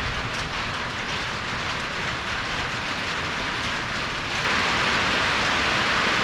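Steady rain falling, with an even hiss that suddenly grows louder about four and a half seconds in.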